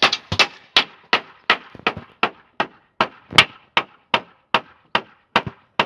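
Hammer blows on wood, struck in a steady fast rhythm of about two and a half a second, each a sharp knock with a short ring; the hammering stops abruptly at the end.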